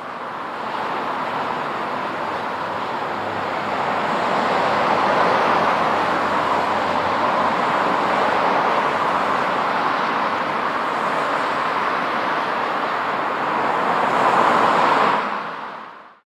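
Road traffic on a multi-lane road: a steady rush of passing cars, swelling a little in the middle and fading out shortly before the end.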